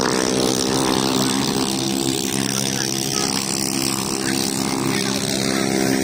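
A small engine, such as an ATV's, runs steadily at idle with an even, unchanging pitch.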